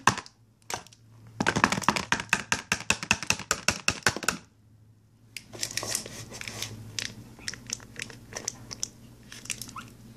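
Plastic crinkling and crackling as hands taped and wrapped in plastic grip and squeeze a plastic glue bottle. There is a dense run of crackles for about three seconds, a short pause, then scattered crackles.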